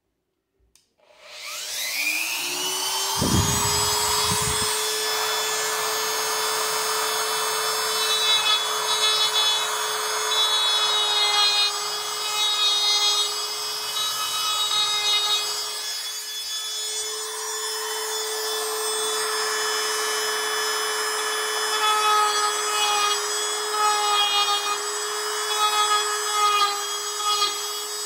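Handheld rotary tool switching on about a second in, its whine rising quickly to a steady high pitch, then grinding with a Kutzall carbide flame burr into cherry wood as it carves spiral twist grooves. The grinding rasp comes and goes as the burr bites and lifts.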